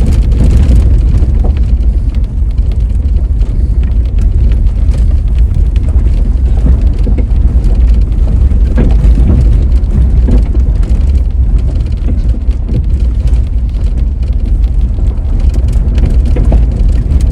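Car driving on a road, heard from inside the cabin: a steady low rumble of engine and tyres.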